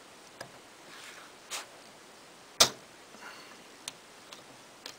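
Small metal clicks and taps of a hand tool and fingers on the machine screws and bearing cap of a Kleinschmidt TT-98 teletype frame, as the bearing cap's screws are being taken out. About six separate clicks, the loudest one about halfway through, with faint scraping between them.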